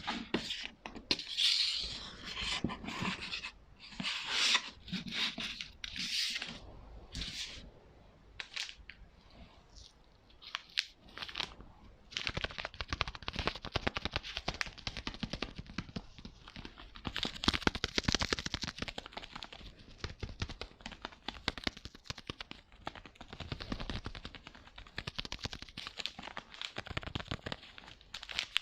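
ASMR tapping and scratching on handheld props: irregular scratchy, rustling strokes at first, then a few separate taps, and about halfway through a dense, fast run of tapping that keeps going.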